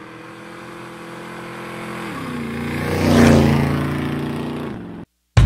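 Motorcycle engine sound effect, running and growing louder, dropping in pitch about two seconds in and peaking a little after three seconds, then fading and cutting off abruptly near the end.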